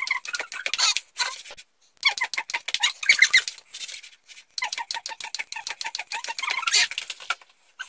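Table tennis ball bouncing rapidly on a table tennis bat, a quick run of light taps several a second, broken by a couple of short pauses.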